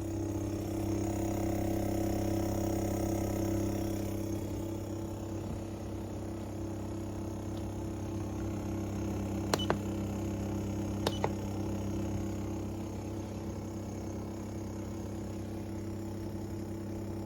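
Steady low machine hum. About nine and a half seconds in, and again about a second and a half later, two quick double clicks with a faint beep, like control buttons being pressed.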